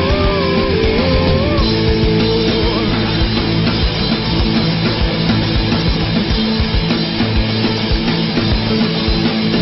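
Loud rock music from a band with distorted guitars and drums. A wavering melody line stops about a second and a half in, leaving the dense guitar-and-drums band playing on.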